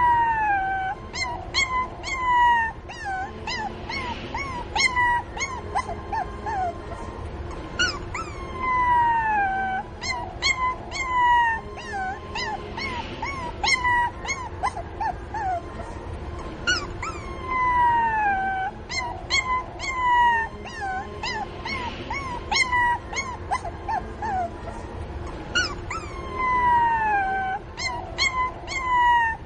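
Puppy crying for its mother: long whines falling in pitch, broken up by short high yelps, again and again. The same stretch of crying repeats about every nine seconds.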